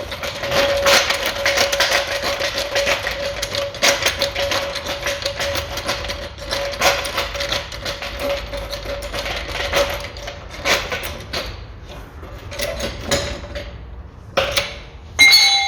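Rapid metallic clicking and clatter as a jack is set under the front suspension ball joint and raised to press against it, over a steady tone that stops near the end.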